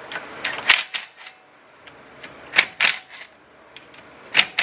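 Sharp metallic clicks and clinks of a socket wrench working the clutch cover's 8 mm bolts loose, in three short clusters.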